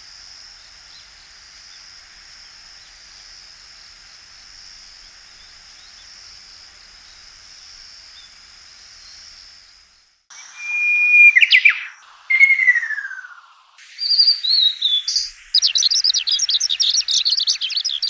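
A faint steady high-pitched tone, then about ten seconds in loud songbird song: a held whistle, a long falling whistled phrase, short falling notes, and near the end a run of rapid high trills.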